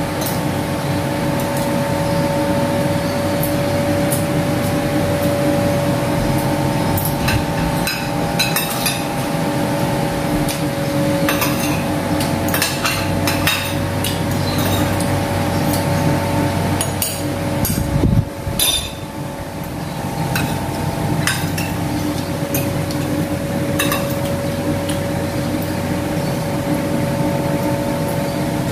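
Metal spoons and forks clinking and scraping on ceramic plates during a meal, in many short irregular clicks over a steady mechanical hum.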